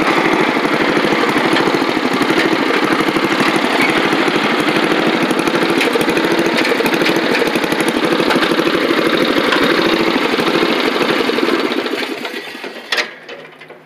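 Riding lawn mower engine running steadily, then winding down and stopping about twelve seconds in, followed by a single clunk.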